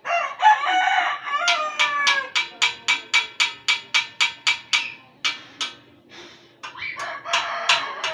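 A rooster crowing, once right at the start and again near the end, with a quick run of sharp, evenly spaced clicks, about four a second, in between.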